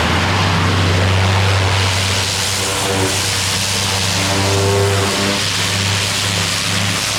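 Pressure washer running with its high-pressure water spray hitting brick steps, blasting off black algae: a steady hiss over a low engine hum.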